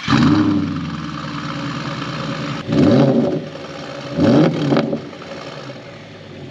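Audi S5's 4.2 V8 running through a Milltek exhaust. It drops from a rev to a steady idle, then gets two short blips of the throttle about a second and a half apart, each rising and falling, before settling back to idle.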